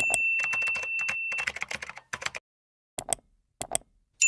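Outro sound effects: a bell-like ding rings on and dies away while a fast run of clicks like keyboard typing plays, followed by two short clicks and a fresh ding near the end.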